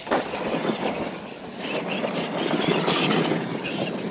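Radio-controlled monster trucks racing on dirt: electric motors and gear drives whining at full throttle, with tires scrabbling on the dirt and a few sharp knocks.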